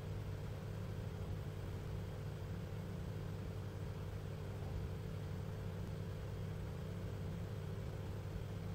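Steady low machine hum with a faint hiss, like fan or equipment noise.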